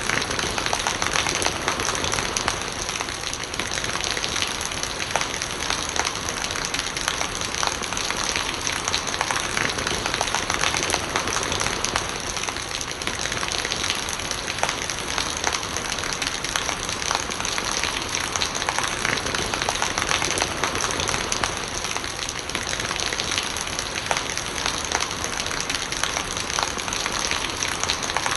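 Steady rain falling: a dense, even hiss made of countless small drop impacts, with no break or change.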